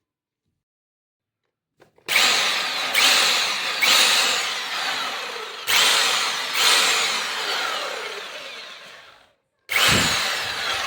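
Crown CT18158 1500 W rotary hammer's electric motor, switched on in short bursts. About six times the motor starts abruptly and then winds down with a falling pitch, with a brief stop near the end before one last burst.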